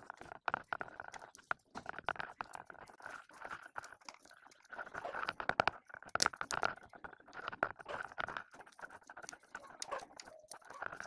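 Black electrical tape being peeled off the roll and wound around spliced wires, giving irregular crackling and clicking that is busiest around the middle.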